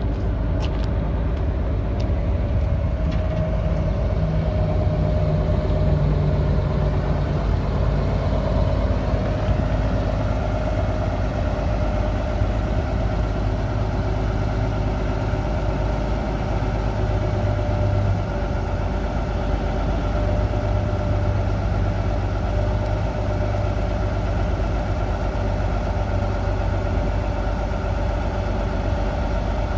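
1979 International Transtar 4200 dump truck's diesel engine idling steadily while the raised dump bed is lowered.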